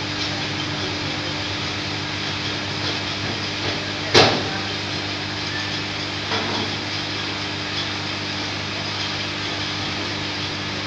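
U-bend annealing machine humming steadily while it heats a carbon steel U-bend tube clamped by its ends. A single sharp knock about four seconds in, and a fainter one a couple of seconds later.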